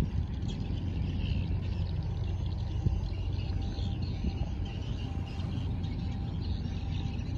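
Steady low rumble of a large container ship passing close by, its engine and churning wake, with birds or insects chirping faintly over it.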